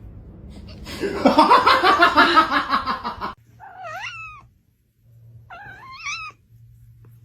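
A loud, harsh, pulsing sound for about two seconds, then a cat meows twice, each meow rising and then falling in pitch.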